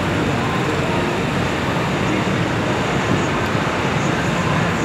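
Steady road traffic noise of cars and motorcycles passing on a city street.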